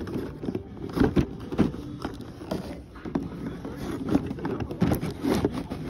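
Clear plastic blister packaging of a die-cast toy car being handled and pried open: irregular crinkles and clicks of stiff plastic.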